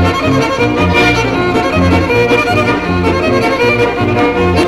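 Old-time dance band playing a reel: fiddle carrying a fast melody over a steady bass line on the beat.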